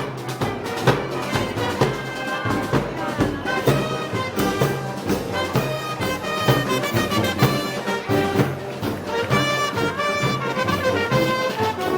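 A brass band playing live festival music, trumpets and trombones carrying the melody over a steady drum beat.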